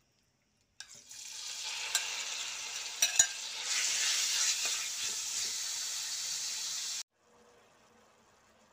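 Sliced meat frying in hot oil in a wok: a loud sizzle that starts suddenly about a second in, with a few sharp knocks of the spatula against the pan as it is stirred. The sizzle cuts off suddenly near the end.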